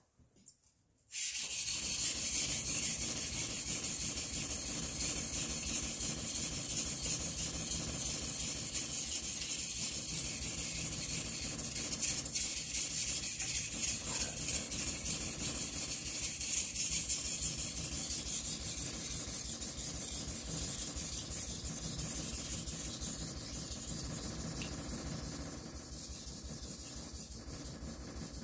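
Kitchen knife blade being ground on a whetstone: a continuous wet scraping of steel over stone in quick repeated strokes, starting about a second in and easing off slightly near the end.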